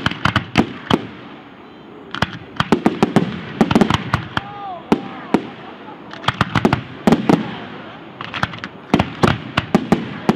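Aerial fireworks bursting in rapid clusters of sharp bangs and crackles, with short lulls about a second and a half in and again around five seconds in.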